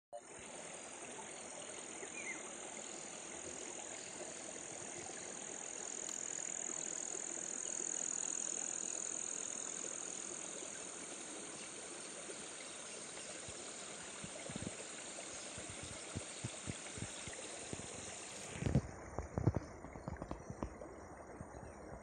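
Outdoor ambience beside a shallow flowing stream: a steady rush of water under a high, steady drone. The drone cuts off near the end, and several low thumps follow.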